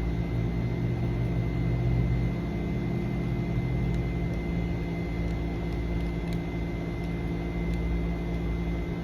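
Steady machine hum with a thin high whine over a low rumble, a little stronger for the first three seconds or so, and a few faint small ticks.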